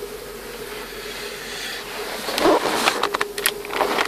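Steady hum of the Mercedes-Benz W140 S500's V8 and road noise inside the cabin while driving. From a little past halfway there are irregular knocks and rustling of handling close to the microphone.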